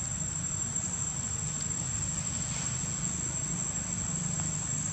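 Steady high-pitched drone of insects, unbroken throughout, over a low steady rumble.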